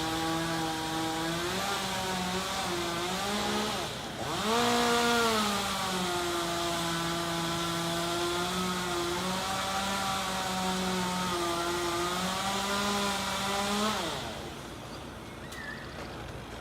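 Two-stroke chainsaw running steadily at speed, dipping and picking back up about four seconds in, then winding down near the end.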